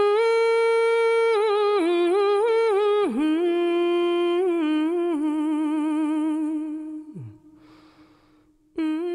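A single voice humming a slow, unaccompanied melody in long held notes with a wavering pitch. It slides down and trails off about seven seconds in, and a new note starts near the end.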